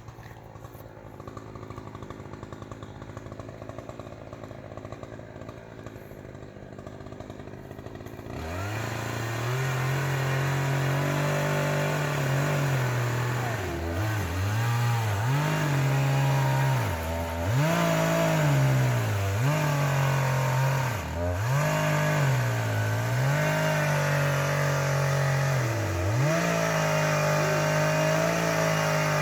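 Chainsaw idling quietly, then throttled up about eight seconds in and run hard. Its pitch dips and recovers again and again as it cuts into a tree.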